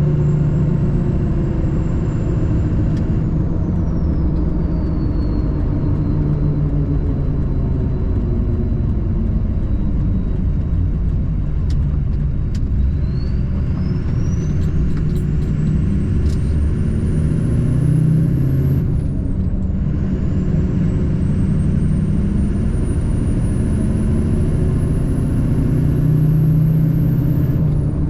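Diesel truck driving at a steady pace: continuous engine and road rumble. A faint high whine rises slowly in pitch twice, dropping back each time.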